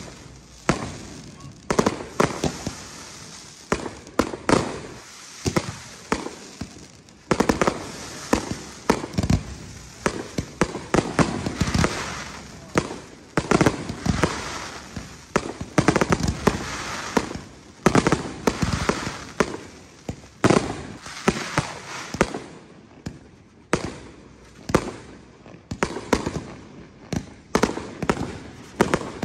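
Aerial fireworks shells bursting in a steady barrage: sharp bangs come irregularly, often several close together, and each trails off in echo.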